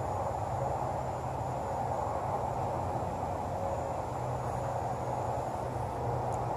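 Steady outdoor ambient noise: an even rushing hiss with no distinct events.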